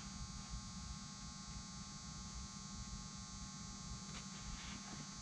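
Steady electrical hum, with a few faint snips of pinking shears cutting lightweight aircraft fabric about four seconds in.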